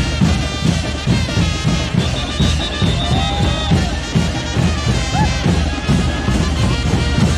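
Brass band music of the kind played for chinelo dancing: horns over a steady drum beat.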